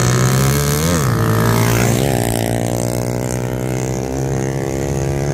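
Two racing motorcycles at full throttle on a dirt straight. Their engine pitch rises and drops back about a second in and again at about two seconds as they go by, then settles into a steady drone.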